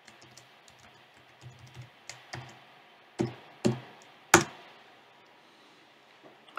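Computer keyboard typing: a run of light key clicks, then three louder key strikes about half a second apart, the last the loudest.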